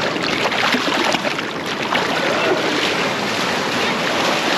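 Ocean surf washing over the rocks of the shoreline, a steady rushing hiss.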